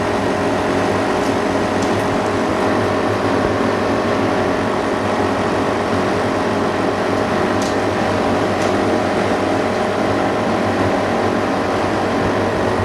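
Steady hum of running workshop machinery, with several fixed tones over a whirring fan-like noise and a few faint clicks.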